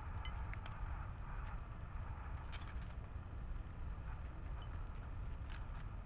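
Inca doves pecking at mixed seed in a clay saucer: scattered sharp clicks of beaks striking seed and dish, some in quick clusters, over a steady low rumble.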